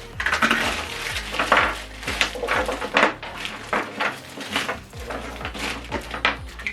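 Rustling and clattering of packaging and small accessories being handled, with irregular sharp clinks. Background music with a steady bass beat runs underneath.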